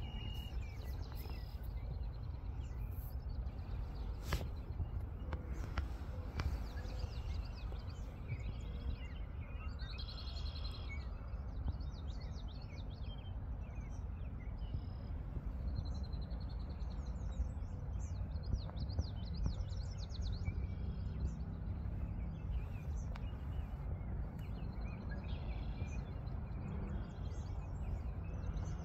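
Songbirds chirping and trilling in short repeated phrases, some rapid, over a steady low rumble. A single sharp click about four seconds in.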